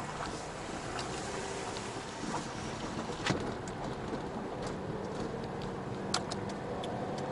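A car driving slowly over a rough forest road, heard from inside the cabin: a steady engine and tyre noise with a few sharp clicks and knocks, the loudest about three seconds in and another about six seconds in.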